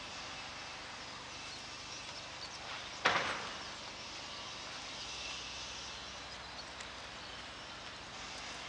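Gloved hands working soil in a planting hole over a steady outdoor background hiss, with one brief, louder scrape about three seconds in.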